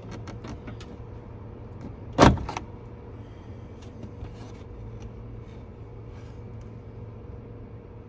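Plastic interior trim panel of a 1991 Nissan 240SX being pried off its retaining clips by hand: a few light clicks, then one loud sharp snap about two seconds in as a clip lets go, which the owner takes for a broken clip. Fainter knocks of the loose panel being handled follow over a steady low hum.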